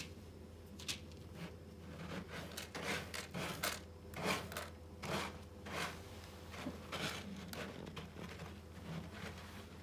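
A cat scratching and shuffling through pellet litter in a plastic litter box: a run of short scratchy rustles, thickest in the middle few seconds.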